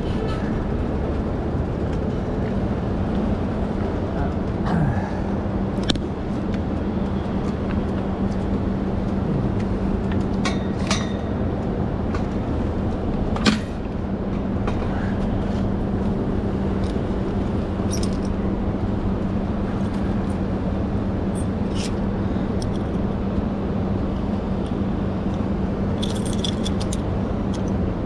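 Steady city street noise with a constant low hum, broken by a few sharp clicks as the bike is handled; keys jangle near the end.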